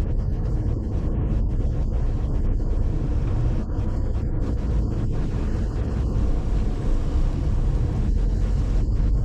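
Steady low rumble of a car on the move: engine and tyre noise.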